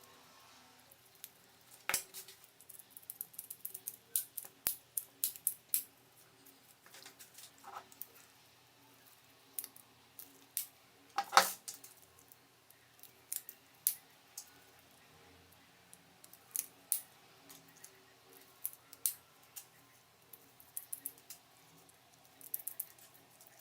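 Blender parts and tools being handled during a repair: irregular sharp clicks and taps of hard plastic and metal, with one louder knock about halfway through.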